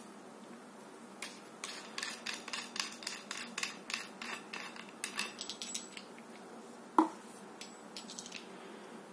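Small metal parts of a telescopic baton's handle end cap being worked loose by hand: a quick run of light metallic clicks and ticks for several seconds, then one sharp metallic clink about seven seconds in, and a few more light clicks.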